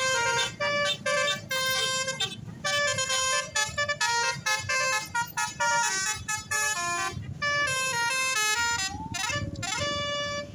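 Indonesian bus 'telolet basuri' multi-tone horn playing a melody: loud horn notes stepping from pitch to pitch several times a second, with a few gliding notes near the end, over a low rumble.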